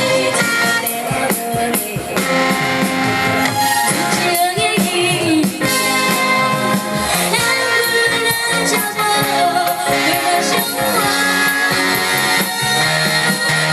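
Live band playing a pop song, with a woman singing over it.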